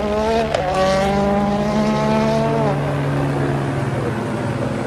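Rally car engine at full throttle, its pitch rising with a quick gear change about half a second in, then held high before fading away after nearly three seconds into a steady hiss.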